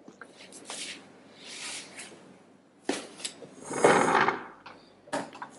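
Handling and movement noises of a person settling at a desk: a sharp knock about three seconds in, then a louder rustling scrape around four seconds, as of a chair being moved, with a few clicks near the end.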